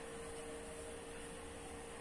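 Quiet, steady background noise: an even hiss with a faint steady hum, and no bird call.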